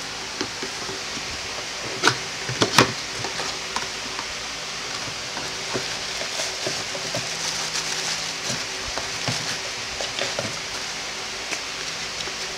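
Cardboard box being opened by hand: a few sharp clicks and taps from the packaging about two seconds in, then lighter tapping and rustling of the card flaps and insert, over a steady hiss.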